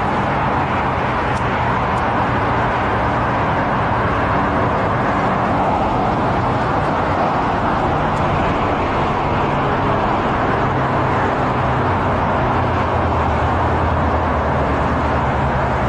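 Steady outdoor background din like distant road traffic, with a low steady hum underneath and no sudden sounds.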